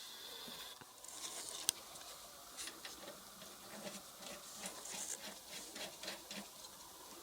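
Scattered light clicks and taps with a few brief rustling hisses, the small sounds of hands working with tools and parts.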